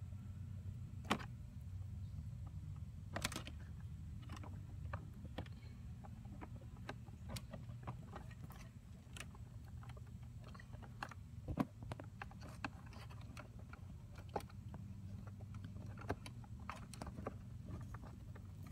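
Hands working car wiring and a plastic screw-on wire connector: scattered small clicks, ticks and plastic rustles, a few sharper clicks among them, over a low steady hum.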